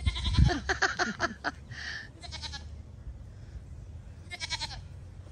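Goats bleating: a run of calls through the first second and a half, a short call about two seconds in, and another about four and a half seconds in. A low thump about half a second in.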